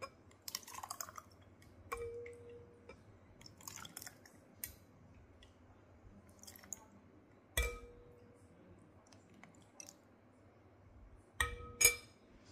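A drinking glass holding a milky drink with crushed ice is handled and knocked on the countertop: scattered clinks and knocks, each of the louder ones followed by a short ring. The loudest comes about 7.5 seconds in, with two more near the end.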